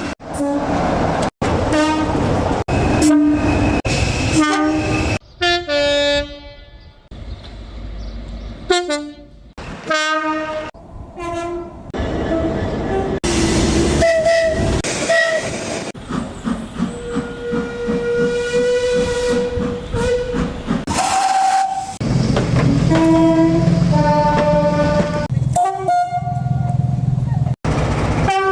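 A rapid series of British train horns, heard in short clips cut one after another: mostly two-tone blasts and short toots, with one long held note about two-thirds of the way through. The noise of trains running on the track lies under the horns.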